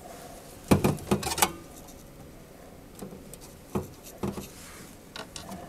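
Light clicks and taps of small hardware, a screw and nut, being handled and started by hand on a metal equipment panel, a quick cluster about a second in, then a few scattered single clicks.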